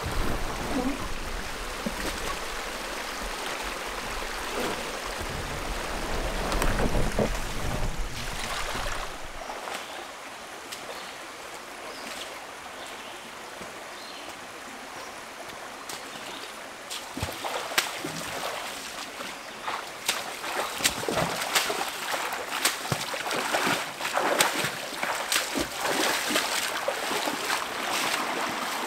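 A canoe being paddled upstream: river water flowing steadily, with irregular paddle splashes and knocks through the second half. A low rumble underlies the first ten seconds or so.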